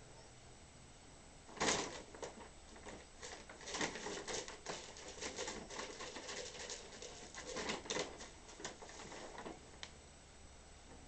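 A bag crinkling and rustling as a cat moves and plays inside it: a quick, irregular run of crackles starting with a sharp burst about two seconds in and dying away about a second and a half before the end.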